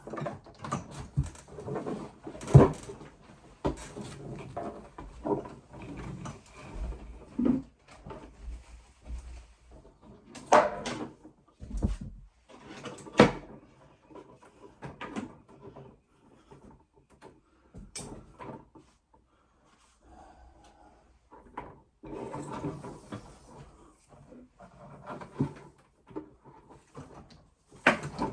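Irregular knocks, clicks and scraping of hand work: tools and materials being handled and set down.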